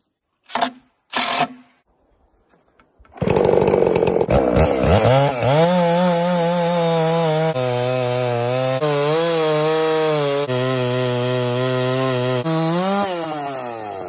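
Two short noises in the first second and a half, then a gas chainsaw mounted in an Alaskan chainsaw mill starts up about three seconds in and revs up. It runs at high speed ripping lengthwise through a log, its engine note dipping and recovering several times as the load on the bar changes, and rises again near the end as it comes off the cut.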